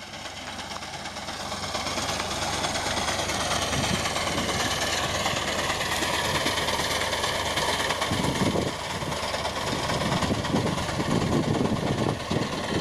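Fiat 480 tractor's three-cylinder diesel engine running under load while its front-mounted reaper cuts standing wheat, with the mechanical clatter of the machine. It grows louder over the first two seconds and then holds steady, with irregular knocks in the second half.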